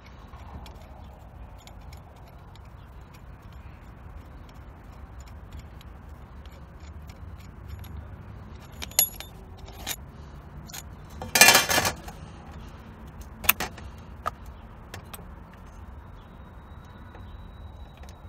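Metal hand tools and loose nuts clinking while the fasteners holding a car's starter motor are undone. Light scattered ticks build to a few sharper clinks, with one loud jangling rattle about eleven seconds in.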